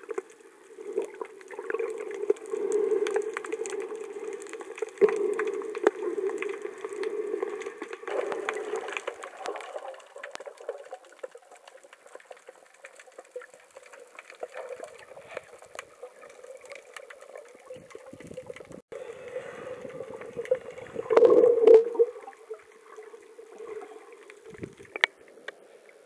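Muffled underwater water noise picked up by a camera held below the surface while snorkeling, with many scattered small clicks. There is a louder burst of water noise about three-quarters of the way through.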